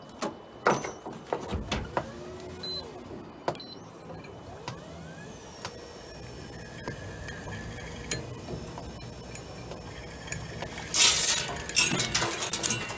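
Belitronic electric jigging machine running, hauling line up over a steel roller with a steady motor hum, a few rising and falling whines and scattered light clicks. About eleven seconds in comes a loud, short spell of splashing and rattling as a hooked mackerel comes up over the roller into the stripper box, shedding water.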